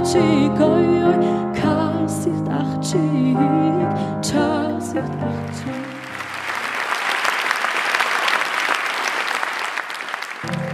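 A woman singing with a wavering vibrato over sustained instrumental accompaniment, the song closing about halfway through. An audience then applauds.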